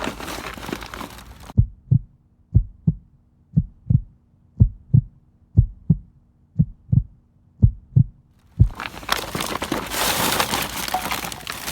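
Heartbeat sound effect: a steady run of low double thumps, about one pair a second, over an otherwise silent background. Before and after it there is general outdoor noise.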